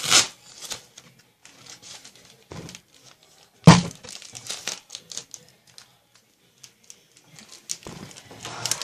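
Adhesive tape being pulled off the roll and wrapped by hand, crinkling and ripping in short, irregular bursts. One sharp knock comes a little under four seconds in.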